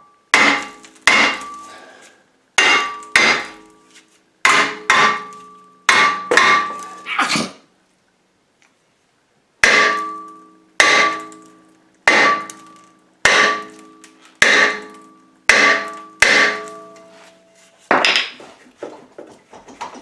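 A short, heavy hammer striking the hub face of a rust-seized rear brake rotor on a 2014 Subaru Outback, between the wheel studs. The cast-iron rotor rings after each blow. There are about seventeen blows in two runs, with a pause of about two seconds in the middle. The blows are meant to break the rust bond that holds the rotor on the hub.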